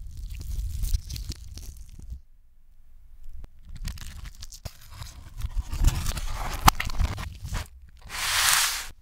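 Played in reverse: the crisp fried breading of McDonald's Chicken McNuggets crackling and crunching as they are handled, in two spells with a short lull between. Near the end, a rush of cardboard-box noise swells up and cuts off suddenly.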